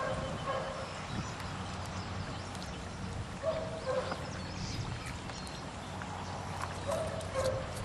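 A bird calling in short, level honking notes, mostly in pairs, a few times over a steady low background of flowing water.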